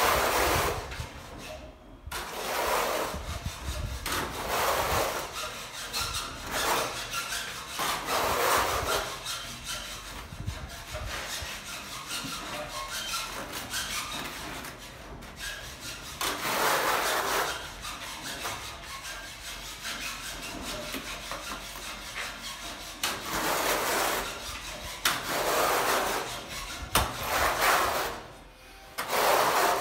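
Steel trowel scraping tile adhesive across a rendered wall in repeated strokes; near the end a notched trowel combs ridges into the adhesive.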